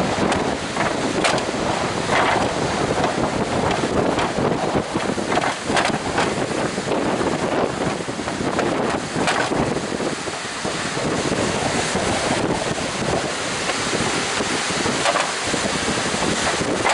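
Strong wind buffeting the microphone over the steady wash of heavy surf, with short gusty bumps now and then.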